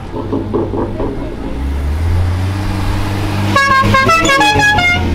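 A car's musical horn playing a quick tune of short notes that step up and down in pitch, starting a little over halfway through, over the steady low rumble of an idling car engine that grows louder about two seconds in.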